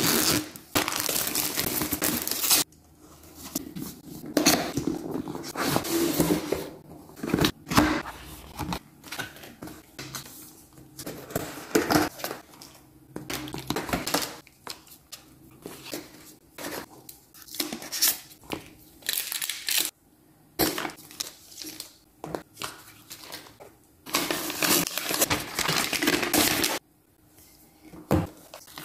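Unboxing handling sounds: plastic shrink wrap torn and crinkled off a tablet box, then cardboard lid and inserts lifted out with rustles, light knocks and clicks as accessories are set down. A long stretch of tearing and crinkling plastic opens the sound, and another comes about 24 seconds in.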